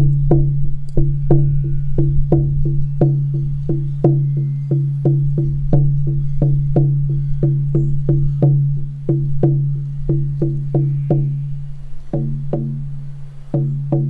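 A 14-inch horse-hide shamanic frame drum on a beechwood frame, struck steadily with a firm beater at about three beats a second. Each beat is a deep, pitched boom that rings on between strikes. Near the end the beats slow and space out, and the last one is left to ring.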